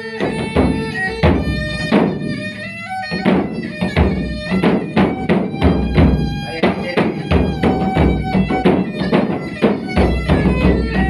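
Instrumental Malay dendang music: pitched melody notes over a quick, regular run of percussive strikes.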